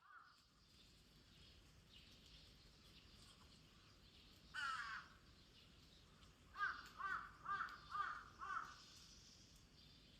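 Crow cawing: one call about four and a half seconds in, then five calls in a row about half a second apart.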